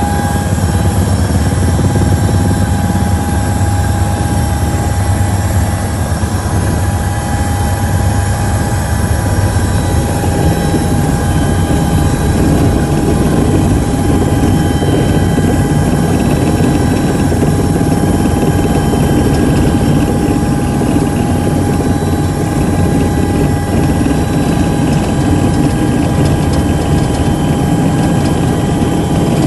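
Helicopter engine and rotor heard from inside the cabin: a loud, steady drone with a constant high whine over it.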